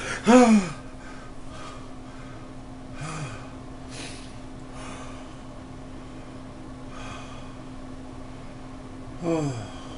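A man jolts awake with a loud gasping cry that falls in pitch, then breathes hard with several sharp breaths and a short grunt, and gives another falling cry near the end. A window air conditioner hums steadily underneath.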